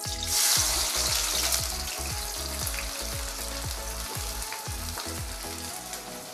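Sliced onions hitting hot oil in a kadhai and frying: a loud sizzle bursts out as they go in, then settles into a steady sizzle that slowly fades.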